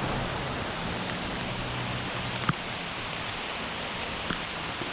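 Steady rain falling, an even hiss of drops, with a single sharp click about halfway through.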